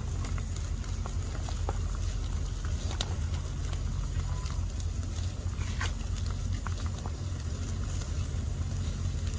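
A wood fire under a grill rack crackling with scattered faint pops, over a steady low rumble.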